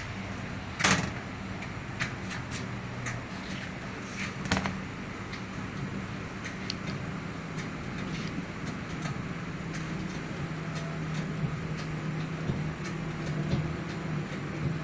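Hydraulic shop press pressing a coupling onto a water pump shaft: scattered metallic clicks and knocks, the two loudest about a second in and at about four and a half seconds, over a steady low hum.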